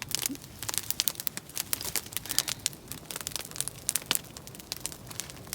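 Wood campfire crackling, with many sharp, irregular snaps and pops.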